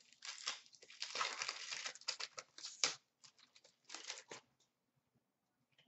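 Foil wrapper of an Upper Deck hockey card pack being torn open and crinkled: a run of crackling rustles for about three seconds, then two short bursts around four seconds in.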